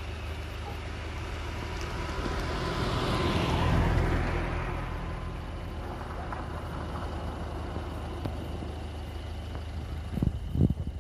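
A motor vehicle passing, its noise swelling to a peak about four seconds in and falling in pitch as it fades, over a steady low engine hum. Two short low thumps come near the end.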